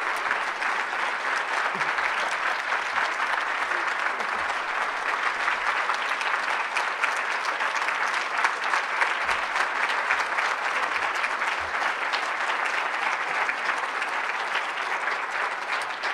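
Audience applauding steadily, a sustained round of clapping.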